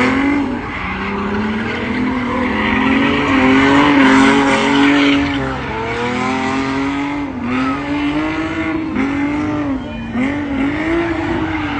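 A car engine revving hard during a burnout/donut, its note rising and dipping again and again, over the continuous screech of spinning tires.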